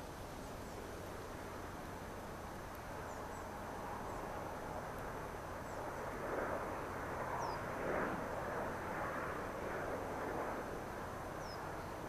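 JR Freight DF200 diesel-electric locomotive hauling a long freight train, heard from far off as a rumble that swells about six seconds in and eases near the end.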